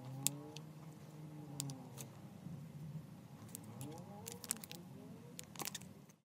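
Foam-bead slime settling, with scattered small clicks and crackles from the beads over a faint low hum that bends slowly in pitch.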